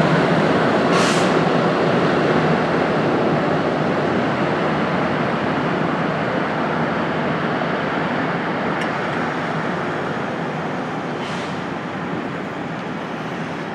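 Loram rail grinding train passing, a dense steady grinding roar that slowly fades as it moves away, with brief high hisses about a second in and again near the end.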